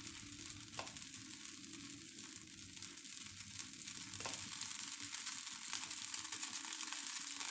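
Thin neer dosa rice batter sizzling in oil in a hot non-stick frying pan: a steady fine hiss with light crackling that grows slightly louder as the lacy crepe sets.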